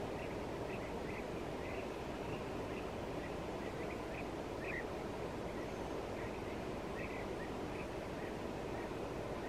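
Outdoor riverbank ambience: a steady low rush of background noise with many short, high animal calls scattered irregularly through it.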